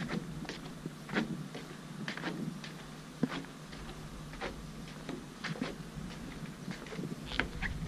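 Footsteps on wooden jetty planks: irregular sharp taps about one to two a second. A low rumble comes in near the end.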